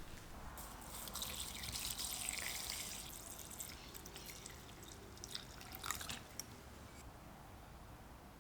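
Methylated spirits poured into a jar of shellac flakes: a soft pour lasting about three seconds, followed by a few light clicks of the container.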